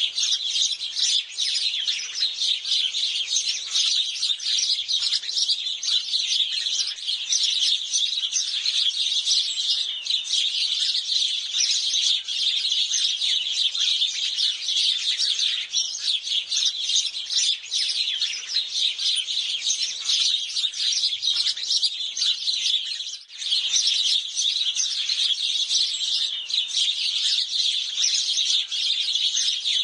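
A flock of house sparrows chirping, many short chirps overlapping in a dense, continuous chatter, with a brief lull about 23 seconds in.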